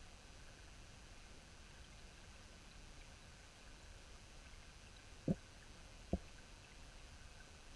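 Faint, steady, muffled underwater ambience picked up by a camera in a waterproof housing, broken a little past the middle by two short dull thumps about a second apart.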